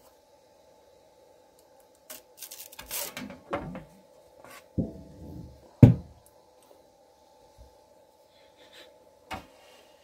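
A metal print plate being handled on a 3D printer bed as it is lifted off and turned over: scraping and rubbing of the sheet, then one sharp clack just before six seconds in as it is set down, and a small click near the end.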